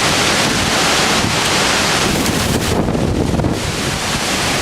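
Strong storm wind gusting and buffeting the microphone with a loud rushing noise; about three seconds in, the high hiss briefly drops away while the low buffeting goes on.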